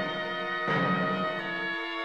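Background music in a slow orchestral style of held chords; a new chord with a deep low note comes in under a second in, and the low note drops away near the end.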